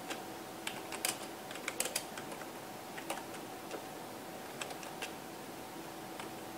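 Computer keyboard being typed on in a few short, scattered runs of keystrokes, over a faint steady hum.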